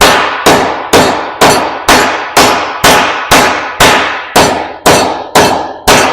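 A hammer striking a steel part of an ear corn picker, about thirteen hard blows at a steady pace of roughly two a second, each ringing out in a metallic clang. The blows straighten a badly bent piece of the picker.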